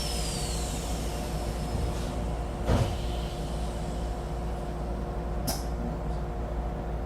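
Inside a Shinetsu Line electric train: a steady hum and low rumble, with a faint whine falling in pitch over the first couple of seconds. A dull thump comes about three seconds in, and a short sharp click a little after five seconds.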